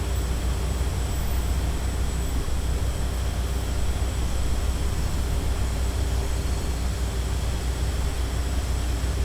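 Steady city street ambience: a constant low rumble of traffic with a faint steady machine hum, and no separate knocks or bangs.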